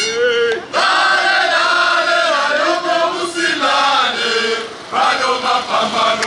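Crowd of demonstrators singing a protest chant together, holding long notes, with a short break about four and a half seconds in.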